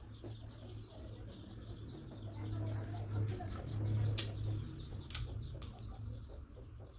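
Close-miked chewing of a chocolate-and-nut coated ice cream bar, with crisp crackling mouth sounds and a few sharp crunches in the second half, the loudest about four seconds in.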